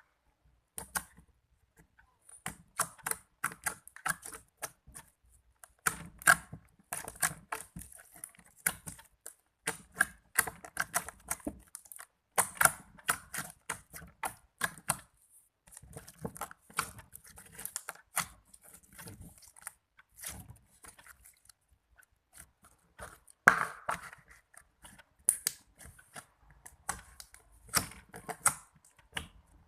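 Slime being squeezed and worked by hand, giving an irregular run of small wet clicks and pops, a few of them louder.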